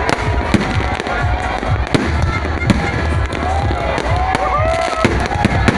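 Fireworks display going off: a rapid, irregular string of sharp bangs and crackles over a continuous din with sliding whistle-like tones.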